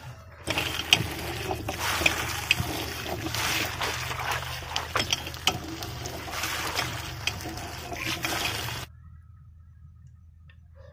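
Water gushing from a hand pump onto chopped vegetables in a bamboo basket, splashing as hands toss and rinse them, with scattered sharp splashes. It cuts off abruptly about two seconds before the end, leaving only a faint low hum.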